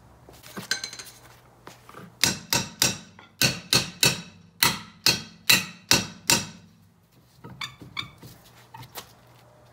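Hammer blows, metal on metal, knocking at a rear brake drum that is rust-seized on its hub: about a dozen quick ringing strikes in a rapid run starting about two seconds in, then a few lighter taps near the end.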